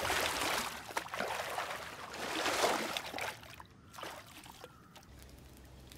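Water splashing and sloshing as a man surfaces from a dip in a river, water streaming off him; the splashing dies down after about three seconds.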